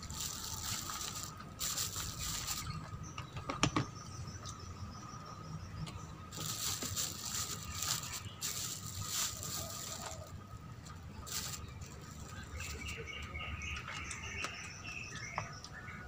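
Bursts of crisp rustling and crunching from crispy fried chicken being eaten and handled, one to three seconds at a time. A run of short chirping notes comes near the end.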